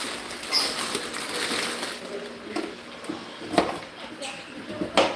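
A carrot being peeled with a peeler: a run of scratchy scraping strokes, with two sharp knocks in the second half.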